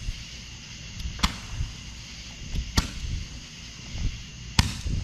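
Roman candle firing three shots, one roughly every second and a half, each a sharp pop as a glowing ball is launched.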